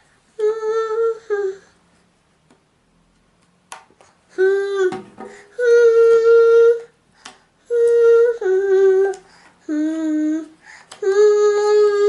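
A high voice singing a wordless tune in long held notes. There is one short phrase near the start, a pause, and then a run of sustained notes stepping up and down in pitch through the rest.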